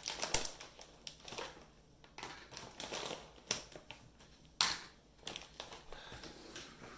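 Plastic candy packaging being opened and handled, crinkling and rustling in irregular bursts with sharp crackles, the loudest a little past halfway.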